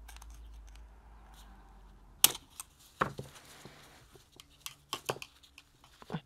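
Sharp clicks and light metallic knocks as a G3 magazine's steel spring and follower are handled and worked apart with screwdrivers on a cloth. One loud click comes about two seconds in, followed by a scatter of smaller clicks.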